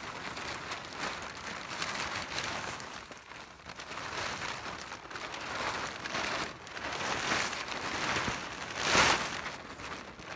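Polyethylene tarp crinkling and rustling in uneven swells as it is unfolded and pulled over a frame, with a louder rustle about nine seconds in.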